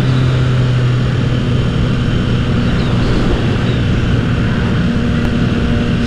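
Motorcycle engine running at a steady cruising speed, its note holding nearly constant, under heavy rushing wind noise.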